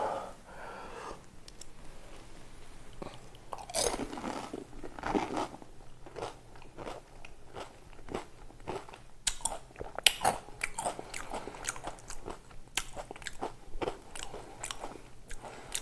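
A crisp fuchka (pani puri) shell, dipped in sour water, being crunched and chewed in the mouth close to a clip-on microphone. Irregular crunches run on, the loudest about ten seconds in.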